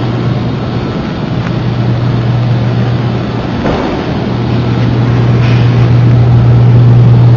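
Hurricane-force wind rushing with a heavy low rumble, growing louder near the end.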